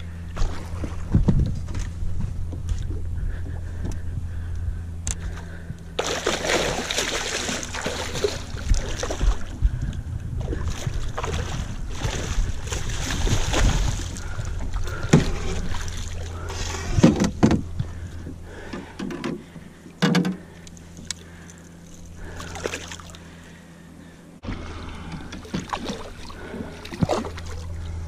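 A boat motor running with a steady low hum, with a stretch of water splashing and a few knocks partway through.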